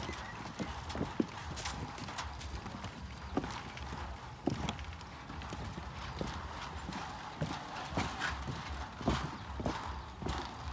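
Footsteps knocking on the wooden planks of a suspension footbridge, a sharp knock every half second or so.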